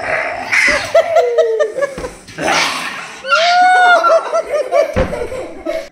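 People laughing in several bursts, with one longer held voiced sound in the middle.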